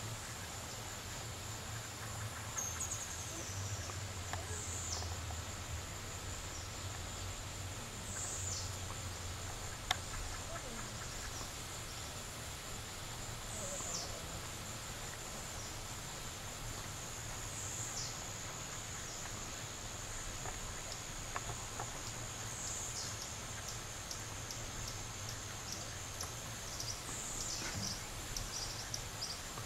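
Insects droning: a steady high-pitched tone with a falling chirp every four or five seconds and a run of quick short ticks near the end, over a low steady hum.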